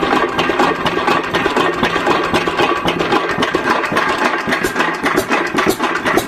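Yanmar HB diesel engine running steadily after its fuel injection pump was repaired, with a rapid, even knocking.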